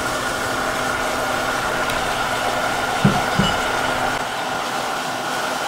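Dark sauce sizzling steadily as it hits the hot oil and aromatics in a saucepan, a continuous hiss with a faint steady hum under it. Two short low knocks come a little after three seconds in.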